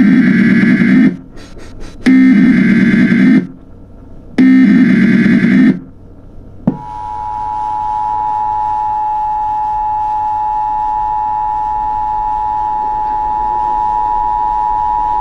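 Emergency Alert System SAME header: three harsh bursts of data tones, each about a second long, with a second's gap between them. From about six and a half seconds in, the EAS two-tone attention signal starts and holds steady.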